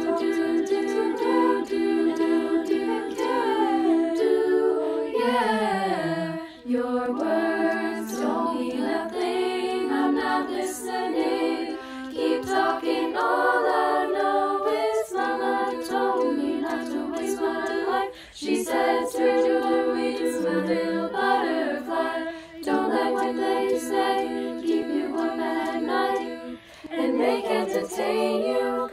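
A cappella group of young women's voices singing in multi-part harmony, holding chords, with a downward slide about six seconds in and short breaks between phrases.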